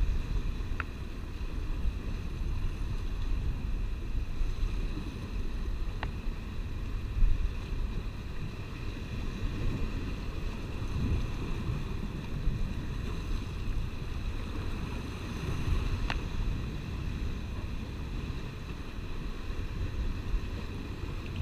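Wind noise on the microphone over the steady wash of sea surf against rocks, with three faint ticks scattered through.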